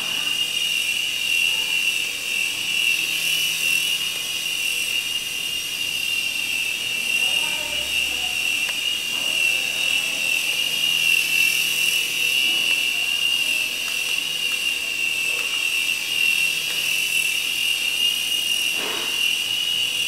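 X20 two-channel toy RC helicopter in flight: its small electric motors and coaxial rotors give a steady high-pitched whine.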